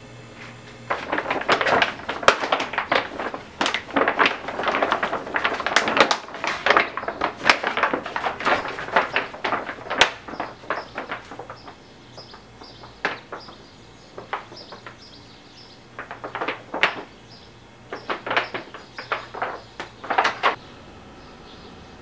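A stiff sheet of dried rawhide drum skin being handled and flexed, crackling and rattling in irregular bursts. The crackling is busy for the first ten seconds or so, then comes in sparser clusters, and stops shortly before the end.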